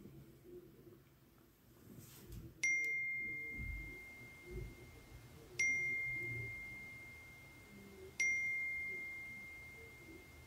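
Mobile phone text-message notification dinging three times, roughly three seconds apart: each a sudden clear ding that rings on and slowly fades. It signals a string of incoming texts.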